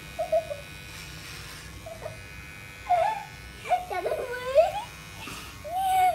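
Corded electric hair clippers buzzing steadily as they cut a child's hair. Over the buzz come several short squealing, giggling sounds from the child, loudest around three and four seconds in and again near the end.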